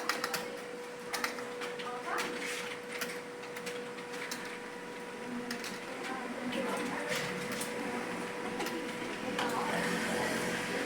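Computer keyboard keys clicking in irregular runs as a student types during a timed typing test, over a steady electrical hum, with faint voices in the background.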